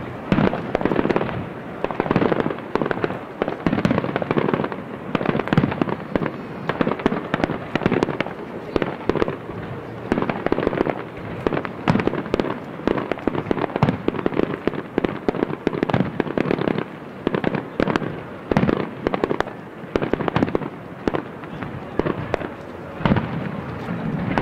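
Aerial fireworks shells bursting in quick succession, several bangs a second with no pause, as in a display's barrage.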